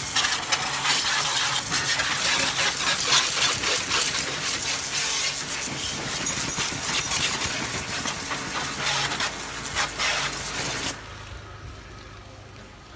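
High-pressure water jet from a pressure washer's narrow red nozzle hissing and spattering against a motorbike's underside and the wet concrete. The spray cuts off suddenly about eleven seconds in.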